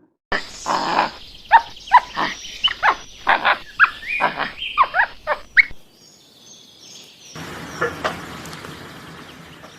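A rapid series of short, sharp animal calls, about two a second, breaking off suddenly after about five and a half seconds; after a brief quiet, a softer noisy stretch with a few faint calls follows.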